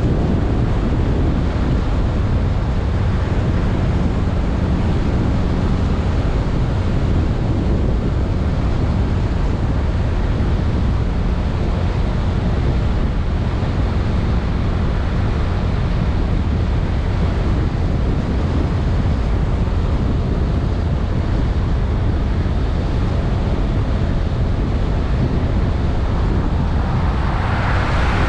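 Steady rush of wind buffeting the microphone on a moving Honda Vision 110cc scooter, with a low engine drone underneath. A hissier sound builds near the end.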